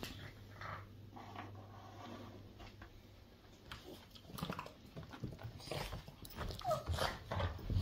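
Cavalier King Charles spaniel whining briefly a few times, with a short rising whine near the end, as it waits for a treat. Light taps are heard in the second half.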